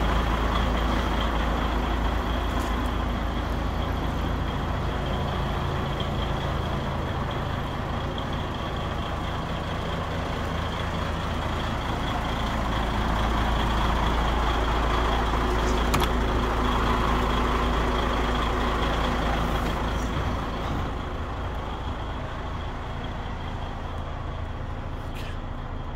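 DAF XF 95.430's 12.6-litre straight-six diesel engine idling steadily, with a thin steady high whine above the rumble. The low rumble drops off about twenty seconds in.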